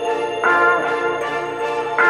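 Background music: sustained chords held steadily, with a new chord coming in about half a second in.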